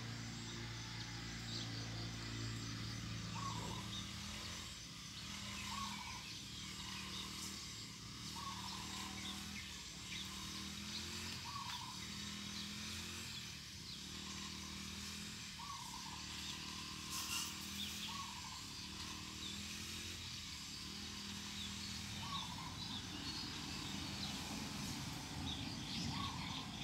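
A bird calling a short note again and again, every one to three seconds, over a low steady hum.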